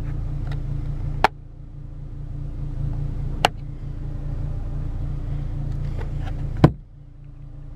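2005 Ford Fiesta ST's 2.0-litre four-cylinder engine idling steadily, heard from inside the cabin, with three sharp clicks spaced a couple of seconds apart.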